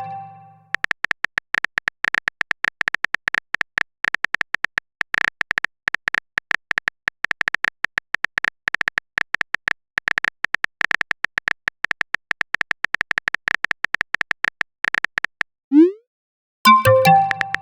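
Phone keyboard typing sound effect: rapid, irregular short clicks with a ringing tick, going on for about fifteen seconds. Near the end comes a short rising swoosh and a bright chime, the alert of a chat message sent and arriving.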